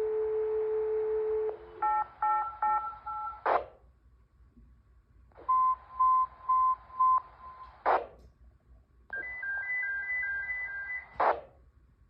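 Fire/EMS radio paging alert tones received over a radio with a hissy background: a steady low tone that stops about 1.5 s in, then short alternating beeps. Two more transmissions follow, one of five quick beeps and one of a steady pair of higher tones. Each transmission ends in a short burst of squelch noise.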